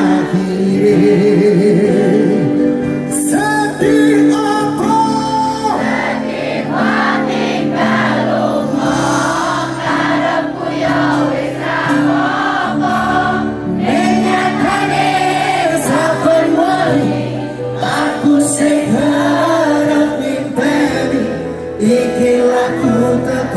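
Live band playing a Javanese pop song, with many voices in the crowd singing along, heard from within the audience.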